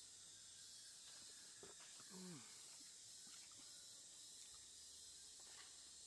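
Faint outdoor ambience: a steady high-pitched hiss, with a few soft clicks and one short, low, falling hum-like sound about two seconds in.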